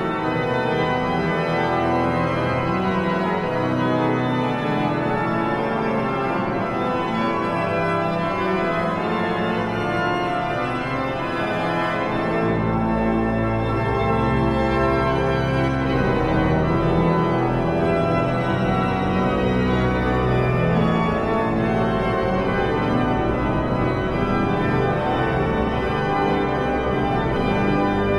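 Hinsz pipe organ playing a many-voiced classical piece in sustained chords. Deep pedal notes come in about twelve seconds in.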